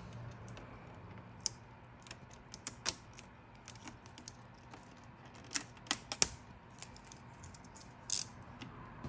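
Gloss black vinyl wrap film crackling and clicking as fingers pull, fold and press it, with irregular sharp ticks and a few louder snaps about midway and near the end.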